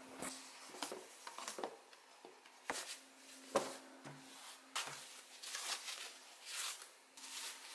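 Paper shopping bag rustling and thin foam packing sheets crinkling as ceramic dishes are lifted out and unwrapped, with a few light knocks as wrapped pieces are set on a wooden table.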